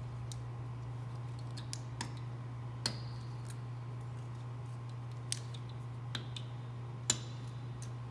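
Wire cutter snipping piano wire at the tuning pins of an antique Erard piano's bass section: scattered sharp metallic clicks, two of them louder with a brief ring.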